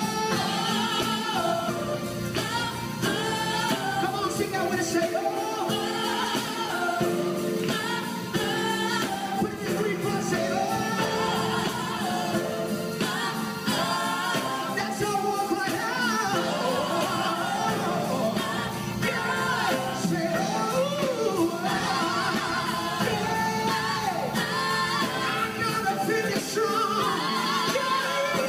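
Live gospel song: a male lead singer and backing vocalists over a band of drums, electric guitar and keyboard, played through the stage's PA speakers.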